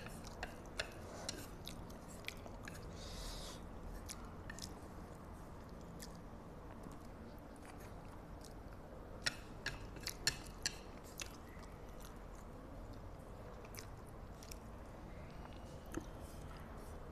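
Close-miked chewing and eating of instant fried noodles through a clip-on microphone: soft mouth sounds with scattered sharp clicks, several of them bunched together about halfway through.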